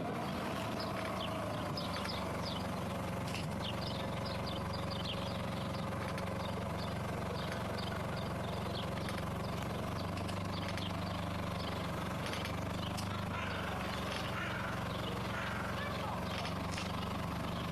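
An unexplained squeak: many short, high squeaks or creaks repeating irregularly over a steady low mechanical hum.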